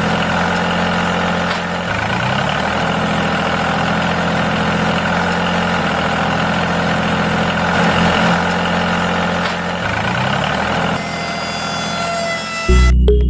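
Steady engine-like running of a miniature DIY tractor as its post hole digger auger turns and drills into sand, dipping briefly in pitch a few times. Music cuts in loudly near the end.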